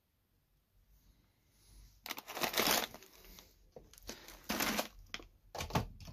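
Plastic cereal bag crinkling as it is handled and set down, in several loud bursts starting about two seconds in.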